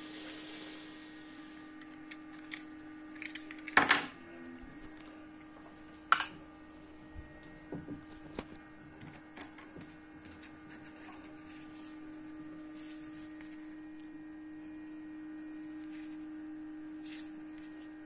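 Steady low hum of a running LED-and-laser 'butterfly' disco effect light, with scattered small clicks and two sharp knocks about four and six seconds in. A hiss fades out in the first second.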